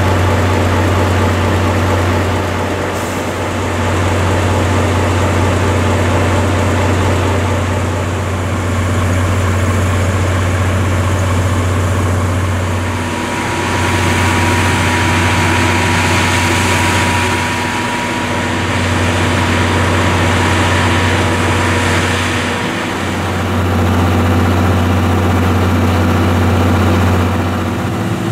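Diesel engine idling: a loud, deep, steady hum that dips briefly every four to five seconds. A thin whistling tone and a hiss join in for several seconds around the middle.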